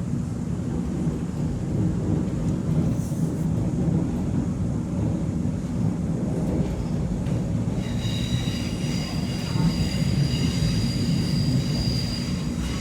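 X'Trapolis 2.0 electric suburban train running, heard from on board, with a steady low rumble of wheels on rail. About eight seconds in, a high-pitched squeal of several steady tones sets in and holds almost to the end: wheel squeal as the train takes a curve.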